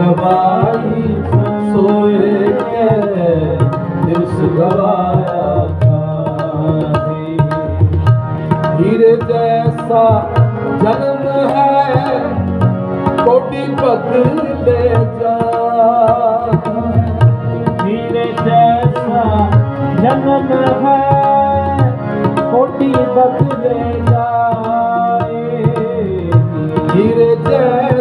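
Sikh Gurbani kirtan: tabla playing a steady rhythm under a sung devotional melody with gliding, ornamented phrases.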